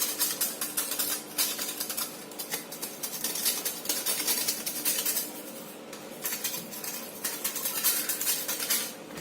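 Dark chocolate rubbed against a hand grater in quick, rapid scraping strokes, with a short pause about five and a half seconds in.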